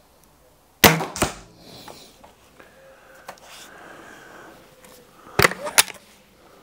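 Weihrauch HW99S .22 break-barrel spring air rifle firing about a second in: a sharp crack with a second sharp knock a moment later. Near the end comes a quick cluster of clicks and clacks as the barrel is broken open to cock the spring for the next shot.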